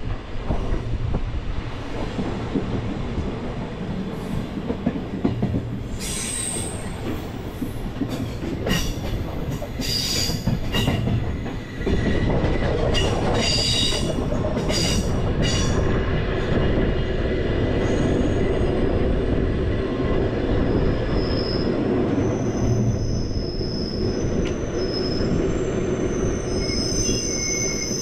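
Glacier Express metre-gauge train running on the rails with a steady rumble. Between about six and sixteen seconds in there is a run of sharp clicks and knocks. From about twenty seconds in, high thin wheel squeal sets in, typical of wheel flanges grinding round a tight curve.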